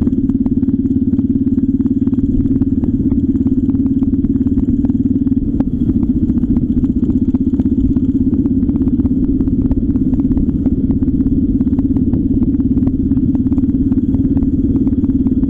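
Motor vehicle engine running steadily as it drives along a rough common road, with many short clicks and rattles.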